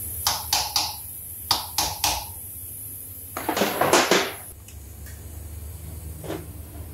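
Small hammer tapping a metal punch against an engine's aluminium oil pump housing: six light, sharp strikes in two quick sets of three, then about a second of louder clatter, with one faint knock near the end.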